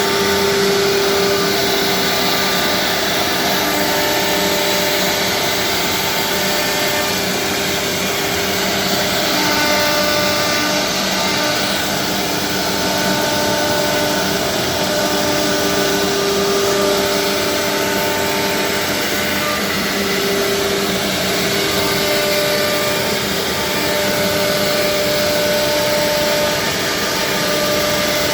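Four-spindle industrial CNC wood router running: a steady whine of the spindle motors over a dense rushing noise, with the pitch of the whine shifting every few seconds.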